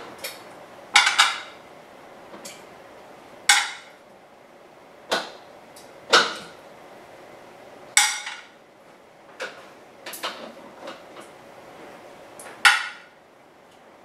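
Metal tongs clinking against glassware as chunks of beef are picked out of a glass baking dish and dropped into glass canning jars. There are about ten sharp clinks at uneven gaps of one to two seconds, several of them ringing briefly.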